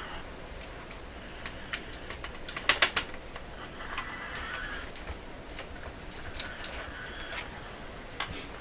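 A small loose screw rattling and rolling around inside a transistor radio's plastic cabinet as the radio is tipped and worked at, with a quick run of sharp clicks about three seconds in.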